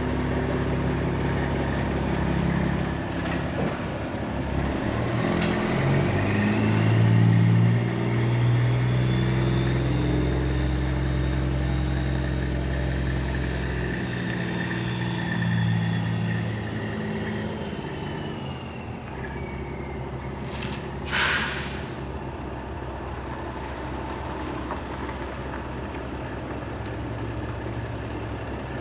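Truck engine running, its pitch rising and falling as it is revved and worked for several seconds, then settling to a steadier run. A short hiss of air about 21 seconds in.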